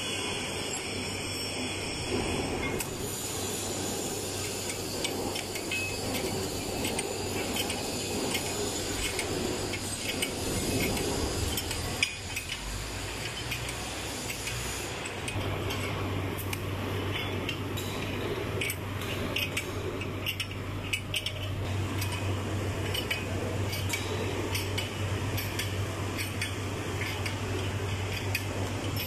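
Scattered metal clinks and light knocks of nuts, a spanner and threaded tie rods being handled and fitted on a double flange dismantling joint, with one sharper knock about twelve seconds in. A steady low hum runs underneath.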